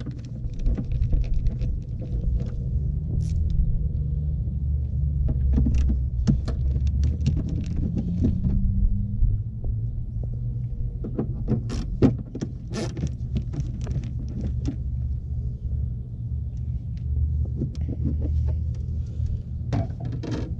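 Screwdriver working the screws out of a plastic air intake box lid, then the lid being lifted off: scattered light clicks and knocks, with one sharper knock about halfway through, over a steady low rumble.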